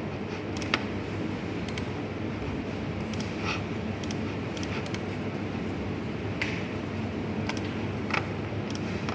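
A machine running with a steady low rumble and hum, with short, sharp clicks at irregular intervals.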